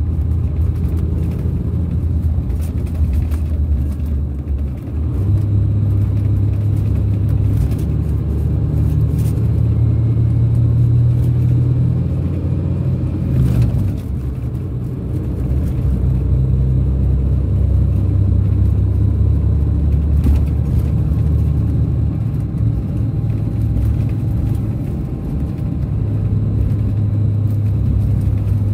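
Scania DC13 inline six-cylinder diesel of a Scania K400 coach, heard from inside the coach while driving: a loud, low drone whose note rises and falls, with a brief dip about halfway through.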